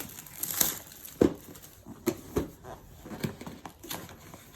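Plastic wrapping on a trading-card booster box crinkling while it is handled and pulled at, with scattered taps and clicks. A sharp click about a second in is the loudest.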